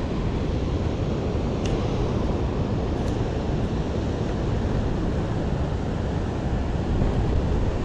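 Steady wind buffeting the microphone over the rush of ocean surf.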